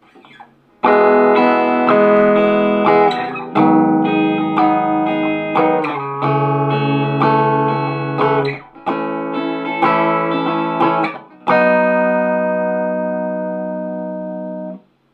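Squier Bullet Telecaster electric guitar played through a Roland Cube amp on its crunch setting, with the pickup selector in the middle position (neck and bridge together). A run of strummed chords starts about a second in and ends on a chord left to ring for about three seconds before it is cut off.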